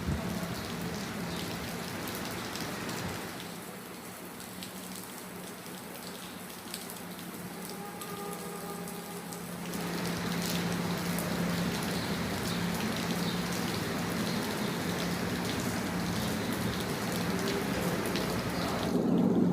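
Steady rain falling, drops hitting hard surfaces, over a constant low hum. The rain is softer from about three seconds in and grows heavier again around ten seconds.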